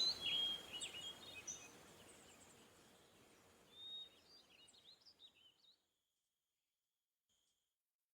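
Several songbirds chirping and warbling over a faint outdoor hiss, fading away and cutting to silence about six seconds in, with one faint last chirp after.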